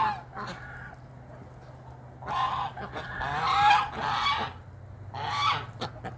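A flock of domestic geese honking in loud, ragged bouts, several birds at once, from a couple of seconds in and again near the end.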